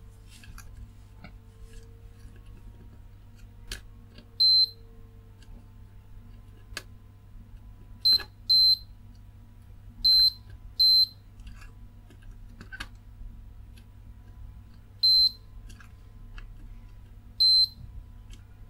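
Digital multimeter's continuity beeper giving seven short, high beeps as the test probes touch pins on a circuit board. Each beep marks a short or near-short between the probe tips. Faint ticks of the probe tips on the board come between the beeps.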